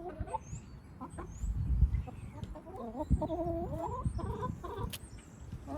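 Wyandotte hens clucking and making soft, wavering calls in several short runs, with low thumps and rumbling underneath.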